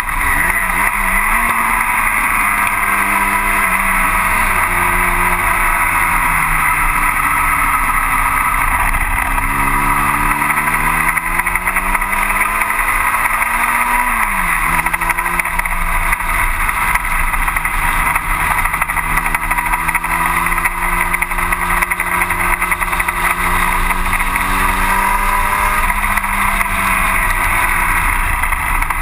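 1960 Cooper T-52 Formula Junior's engine running hard at racing revs, heard from the cockpit over a steady rushing noise. The revs sag and climb several times, drop sharply about fourteen seconds in at a gear change, then hold steady and rise again near the end.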